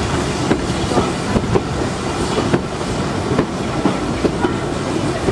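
Steam locomotive and its coach passing close by: a steady rumble of the train running on the track, with irregular clanks and clicks as the wheels cross the rail joints.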